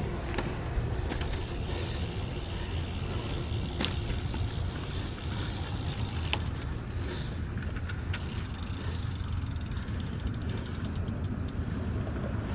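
Recumbent trike rolling along a paved trail: a steady low rumble of tyres and wind, with a few scattered clicks and a quick run of fast ticks about ten seconds in.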